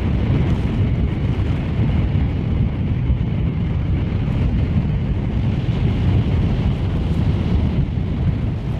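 Wind buffeting the microphone in a steady low rumble, with water washing along the shore beneath it.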